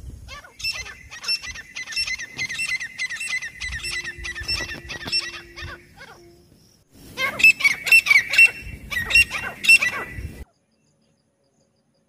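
Grey francolins calling: a fast, evenly repeated series of sharp notes, then after a short pause a second, louder bout of calls that cuts off suddenly about ten and a half seconds in.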